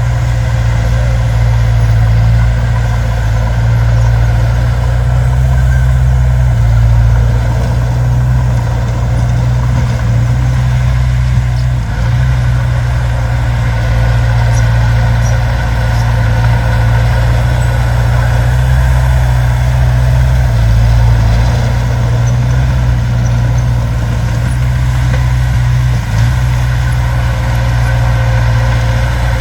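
Heavy diesel earthmoving machinery running steadily, a loud, continuous low engine drone.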